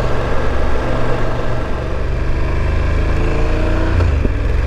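BMW F850GS motorcycle's parallel-twin engine running steadily under way.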